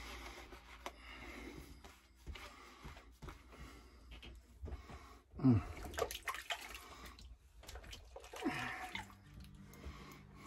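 Water splashing and dripping during a wet shave, with many short sharp knocks. Two brief sounds slide downward in pitch, the louder about five and a half seconds in and a smaller one near the end.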